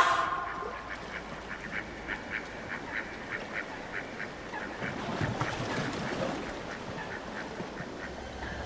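Animal calls: a quick run of short, repeated calls, about three or four a second, with a brief low rumble around the middle.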